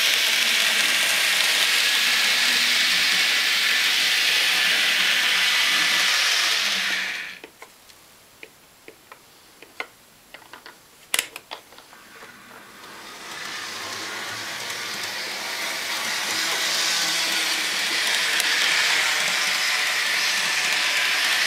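Model diesel locomotive pulling two ore cars along the track: a steady whirring hiss from its motor and wheels, which dies away about seven seconds in. A few sharp clicks follow while the DCC controller is worked, then the running noise builds up again from about thirteen seconds in and holds steady.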